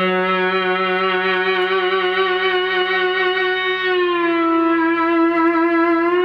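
A single electric guitar note held in endless sustain by a Fernandes Sustainer, played through a Marshall JMP-1 preamp. The note rings steadily; about four seconds in its low fundamental fades away and a higher overtone carries on, the sustainer pushing the string into harmonic feedback.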